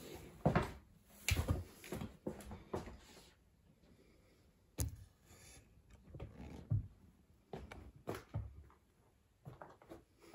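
Irregular bumps, knocks and rustling from a hand-held phone being moved about and rubbing against a shirt, with a sharp click about five seconds in.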